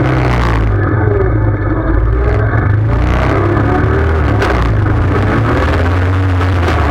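ATV engine running under way, its note rising and falling with the throttle.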